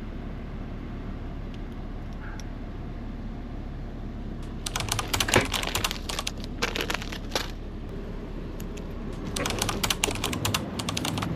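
Two bursts of rapid, light clicking and tapping, about five seconds in and again near the end, over a steady low hum.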